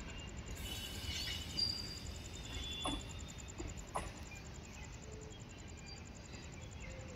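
Low steady rumble of a passenger train's coaches moving away, with birds chirping over it. Two faint knocks come about a second apart midway.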